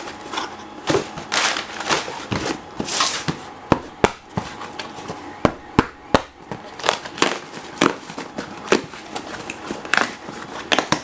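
Cardboard boxes being handled and opened: packing paper rustling and crinkling, with many irregular sharp clicks and knocks as the boxes and bagged parts are moved about.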